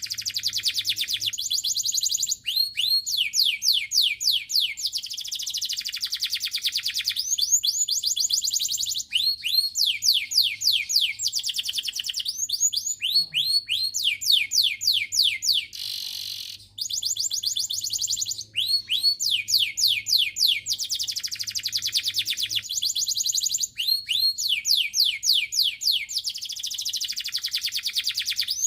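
Domestic canary singing a long, continuous song: fast rolling trills of rapidly repeated high notes, switching between different trill types, with short breaks between phrases.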